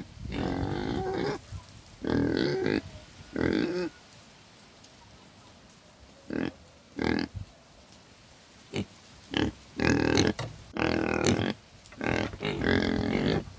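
Pig grunting: a run of short and longer grunts, a pause of about two seconds midway, then a quicker cluster of grunts near the end.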